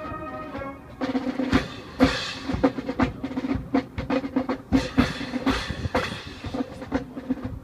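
High school marching band with its wind section holding a chord for about a second, then the drumline takes over with rapid snare strokes and bass drum hits over a sustained low tone.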